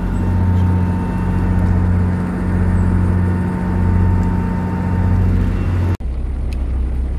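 Houseboat's engine running while cruising: a steady low drone with a slow, even throb. About six seconds in it cuts off abruptly to a lower, steadier hum.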